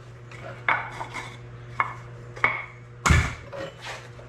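Metal hand tools clinking and clanking as they are handled and set down: four sharp metallic knocks with a brief ring, the last and loudest, about three seconds in, with a dull thump.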